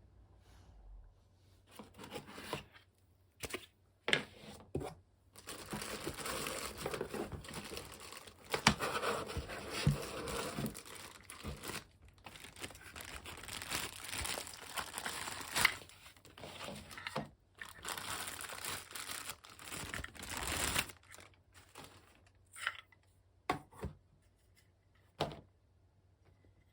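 Packaging being handled and unwrapped: a long stretch of crinkling and tearing, then a few sharp clicks and knocks near the end.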